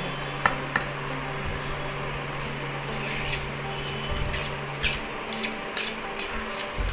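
Cooked basmati rice being tipped and pushed off a perforated steel skimmer ladle into a pan: soft rubbing and scraping with a few sharp clicks of metal. A steady low hum runs underneath and stops about five seconds in.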